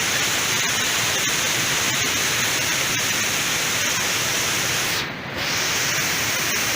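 Steady rush of a fast-flowing mountain stream, briefly muffled about five seconds in.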